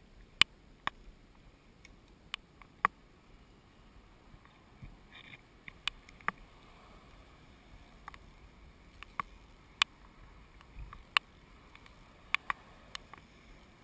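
Sharp, irregular clicks, about a dozen scattered over a faint steady hiss.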